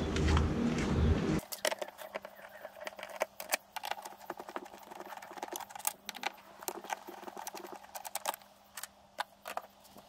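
A loud rumble for the first second or so cuts off abruptly, then a screwdriver clicks and ticks irregularly as it undoes the screws holding a VW T4 van's plastic front door card.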